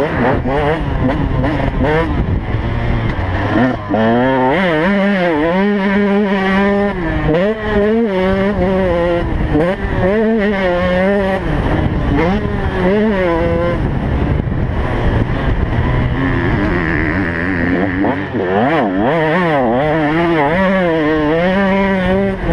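2015 KTM 125 two-stroke single-cylinder motocross engine revving hard, its pitch climbing and dropping over and over as the rider opens and shuts the throttle and shifts gears around the track. Heard from the rider's helmet.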